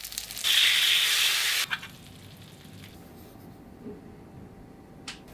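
Starch-dusted mackerel fillets sizzling in hot oil in a pan. The crackling turns to a loud, steady hiss about half a second in and stops abruptly under two seconds in, leaving quiet room sound with a single click near the end.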